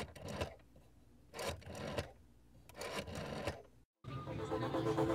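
Three short, noisy, rasping sound effects about a second and a half apart, then electronic music starts about four seconds in, with steady tones and a quick pulsing beat building.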